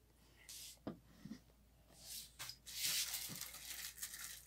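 Clear plastic bag around a solar charge controller crinkling and rustling as the unit is handled and turned over, with a few light knocks about a second in; the rustling is longest near the end.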